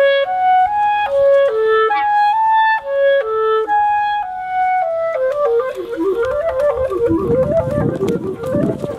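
Clarinet playing a melody of held notes that moves into quicker running notes about five seconds in, with a fuller accompaniment coming in underneath near the end.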